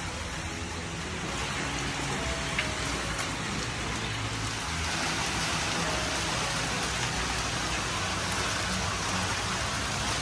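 Steady splashing and rushing of water, like a pipe pouring into a koi holding vat, a little louder and brighter from about halfway through.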